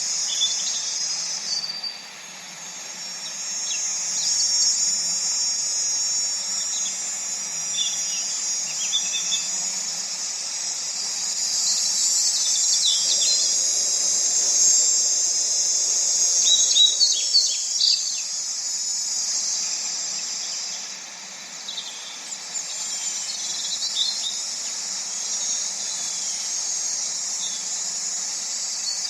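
A steady, high-pitched chorus of insects trilling, with birds chirping now and then. There is a quick run of chirps about two-thirds of the way through.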